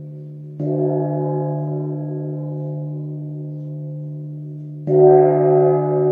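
A 48 cm Blau gong struck twice with a felt mallet, about half a second in and again near the end. Each stroke swells into a long, steady ringing hum with a strong low tone and higher overtones over the ring of the stroke before. The second stroke is louder and brighter.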